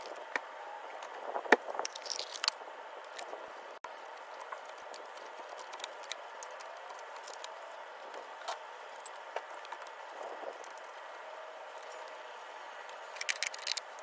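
Scattered sharp metallic clicks and rattles of brake pads being seated into the steel retaining clips of a front brake caliper bracket. A quick cluster of clicks comes near the end as the caliper is fitted over the pads, over a steady background hiss.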